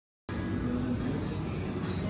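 Steady low rumble of a moving vehicle with faint music over it, starting abruptly after a moment of dead silence.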